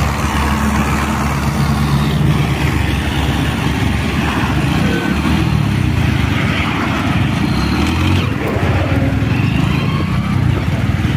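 Mahindra Arjun 605 diesel tractor engine running steadily under heavy load in first gear, pulling a loaded sugarcane trolley up a climb. It is mixed with road and wind noise from a vehicle driving alongside.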